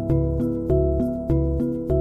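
Background instrumental music: sustained pitched notes over a low bass, with a new note struck about every 0.6 s.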